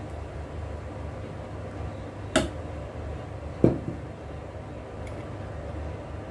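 Two sharp knocks of kitchenware handled on the counter, about a second and a half apart, over a steady low hum.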